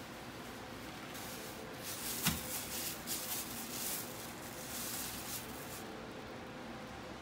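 A metal spatula scraping over a skillet, with one sharp clink a little after two seconds in. A faint steady hum runs underneath.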